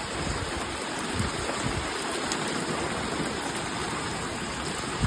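Heavy downpour: a steady hiss of torrential rain, mixed with rushing water.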